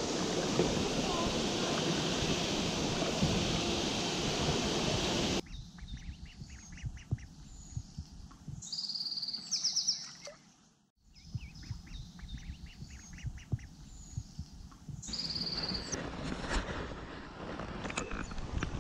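Fast water rushing past a mill weir, loud and steady, cutting off about five seconds in. After that it is much quieter, with birds calling: short high peeps and chirps.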